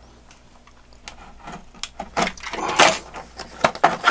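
Small cardboard box being slit open with a utility knife and its lid pulled open: scraping and rustling of card with a few sharp clicks, loudest about three seconds in.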